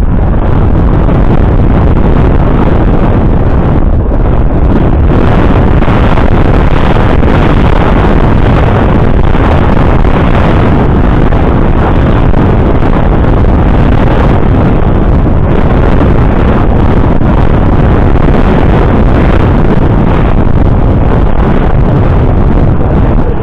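Loud, steady wind buffeting the microphone.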